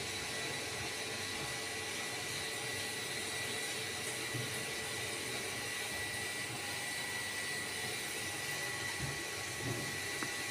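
Steady background hiss and whir with a faint, constant high whine. No distinct kitten sounds stand out above it.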